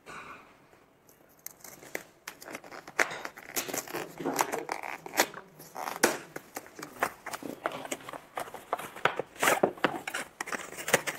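A cardboard product box's tear strip being ripped open by hand: scratchy tearing and rustling with many irregular sharp clicks, then the flaps and the inner case being handled.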